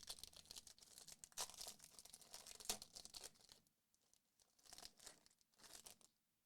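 A foil trading-card pack wrapper being torn open and crinkled, then a couple of short rustles.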